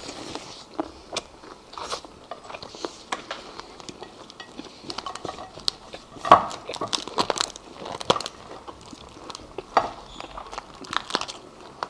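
Cooked lobster shell being cracked and pulled apart by gloved hands: a scatter of sharp cracks and crunches, the loudest about six seconds in, with some chewing.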